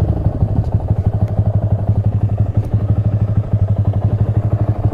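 Honda Grom's small single-cylinder four-stroke engine running steadily at low revs, a fast, even putter.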